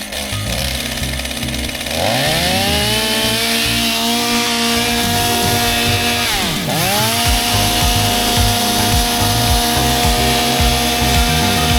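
Chainsaw in a chainsaw mill with a 48-inch bar, revving up to full throttle about two seconds in, dropping briefly and revving back up a few seconds later, then running steadily at high speed.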